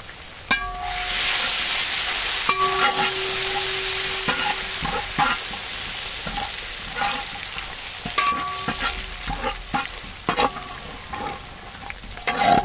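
Fresh curry leaves sizzling in hot coconut oil with browned shallots, ginger and garlic. The sizzle swells about a second in and slowly fades, while a metal spatula stirs and scrapes across the metal pan with repeated ringing scrapes.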